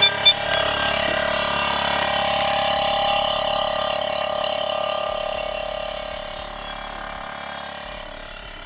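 Viair 400C 12-volt air compressor switching on with a click and running steadily, a whine over a hiss that eases slightly in level as it goes. It keeps running without shutting off because a port on the air tank is still open and unplugged.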